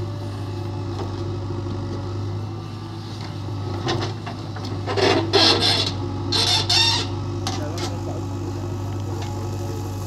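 JCB 3DX backhoe loader's diesel engine running steadily as the backhoe works. About five seconds in come two short, harsh scraping bursts as the bucket teeth dig into the soil.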